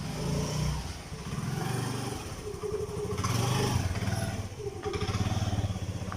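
Motorcycle engine running at idle, its low pitch shifting up and down a few times.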